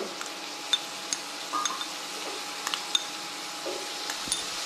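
A steel spoon clinking against a small bowl as ginger-garlic paste is scraped out into a clay cooking pot, about half a dozen light clinks. Under them, a faint sizzle of sliced onions frying in oil.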